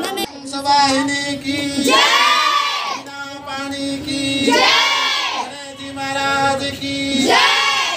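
A group of girls singing together during a Saraswati Puja aarti. Their voices hold a steady note, and three times they swoop up in pitch and back down, loud.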